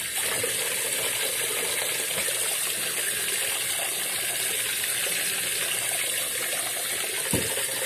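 Kitchen tap running steadily into a pot of rice in a stainless steel sink, topping up the rinsed rice with cooking water; a light knock sounds near the end and the flow cuts off right at the close.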